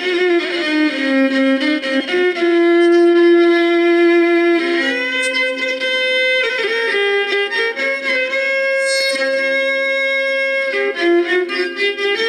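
Electric violin bowed in a slow melody, the notes changing every second or so, with one note held for a couple of seconds about two seconds in.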